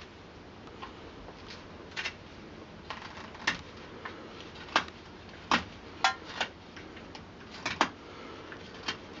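Knife whittling a dowel on the end of a wooden stick held in a vise: short, crisp snicks as the blade slices off shavings, irregularly spaced about once a second.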